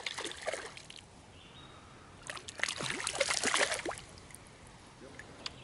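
A small hooked fish splashing and thrashing at the surface of a shallow creek as it is pulled in, in two bursts: a short one at the start and a longer, louder one about two seconds in.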